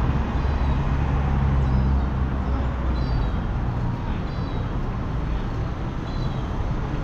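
Road traffic: cars passing with a steady low engine hum, loudest in the first few seconds, and a few faint high chirps over it.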